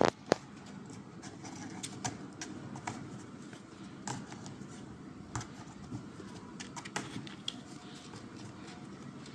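Kittens' paws and claws tapping and scratching on a cardboard box: scattered light clicks and scrapes, with two sharper clicks right at the start, over a steady low room hum.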